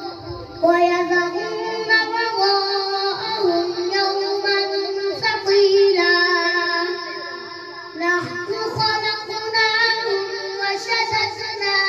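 A young boy reciting the Quran in a melodic chanted style (tilawat) into a microphone, holding long ornamented notes, with short breaths between phrases near the start and about eight seconds in.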